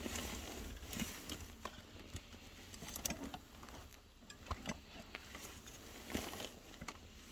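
Irregular light taps and clicks of objects being handled, over a faint steady hiss.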